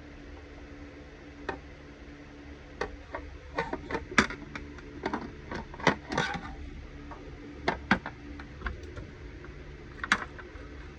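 Irregular light clicks and taps of a screwdriver and small screws against a hard drive's metal casing and NVR mounting bracket while the screw holes are lined up, densest in the middle and with a last few near the end.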